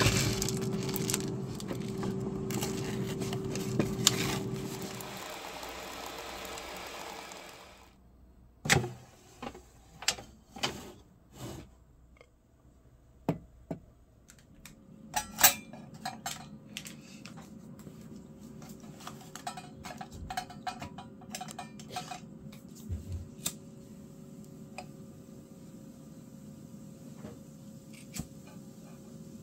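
Plastic packaging crinkling and rustling for several seconds, then a run of sharp clicks and knocks from kitchenware being handled, then a faint steady hum with a few light taps.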